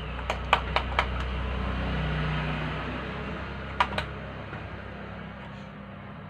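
A few sharp hand claps: a quick run of three or four about half a second in, and two more near the four-second mark. A steady low hum runs underneath.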